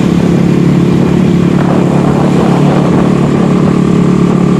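Steady drone of motorcycle and bus engines running together at an even road speed.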